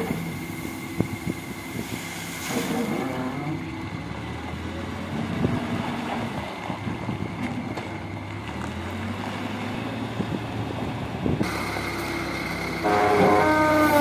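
Backhoe loader's diesel engine running at a steady low speed, then revving under hydraulic load about a second before the end, its pitch sliding up and down, as the front bucket is raised to tip gravel into a dump truck.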